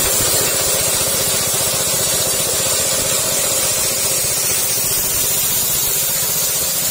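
Combination grass chopper and grain hammer mill running at speed, driven by a small petrol engine, grinding dried corn into meal: a steady, loud rushing din with a fast low pulsing underneath.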